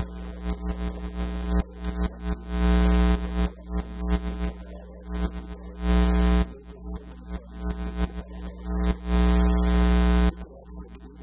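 Electrical mains hum with a buzz of many overtones that swells loud three times, about two to three seconds in, around six seconds and near the end.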